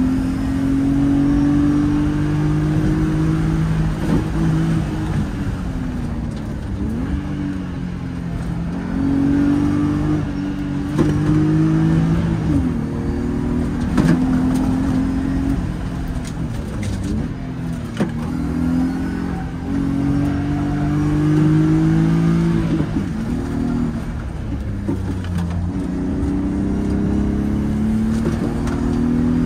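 BMW E36's engine heard from inside the cabin, revving up under acceleration and dropping back again and again as the car pulls out of one bend and slows for the next. A few brief knocks stand out along the way.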